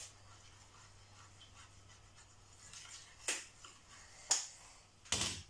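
A fork stirring fish through flour on a plate, giving a few short, sharp scrapes, about three in the second half, over a faint steady low hum.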